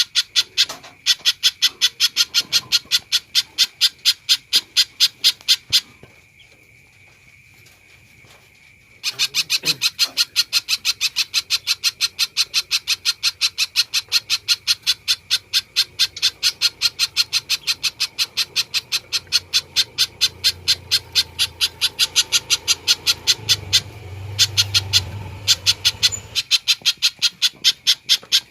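Spiderhunter calling in a fast, even string of sharp, high chipping notes, about four or five a second. The string breaks off for a few seconds once, then resumes. This is a bird in full, continuous voice.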